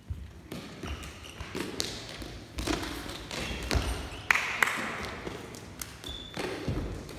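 Lábtoll-labda shuttlecock kicked back and forth over the net: sharp irregular kick taps, with footsteps and a few brief shoe squeaks on the sports-hall floor. The knocks echo in the large hall.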